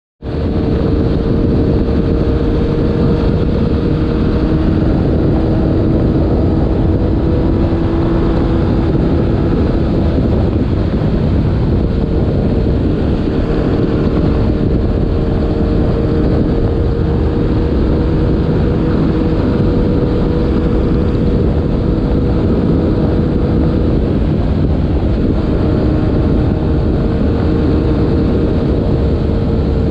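A steady mechanical hum holding one unchanging pitch, with wind rushing over the microphone.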